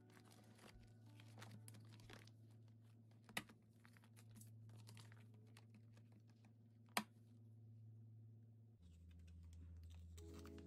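Faint crinkling of plastic binder pocket sleeves and light fingernail taps as photocards are handled and slid into pockets, with two sharper clicks a few seconds apart.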